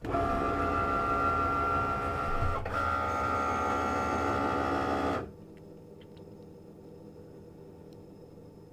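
Cricut Maker cutting machine's motors running with a loud whine of several steady tones, briefly breaking off about two and a half seconds in. At about five seconds it drops to a quieter steady hum. This is the machine detecting the newly loaded scoring wheel after its Go button is pressed.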